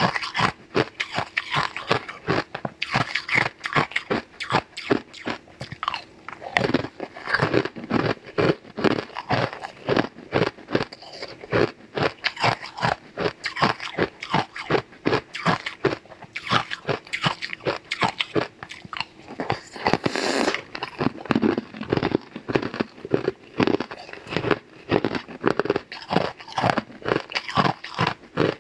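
Close-miked biting and crunching of frozen purple ice cubes: a rapid run of sharp cracks, several a second, with a denser burst of crunching about twenty seconds in.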